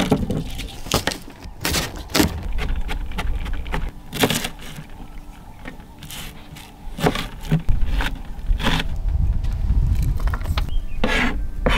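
Kitchen knife chopping garlic and onion on a plastic cutting board: irregular sharp knocks and blade scrapes, about one a second, with a few quicker clusters. A steady low rumble runs underneath.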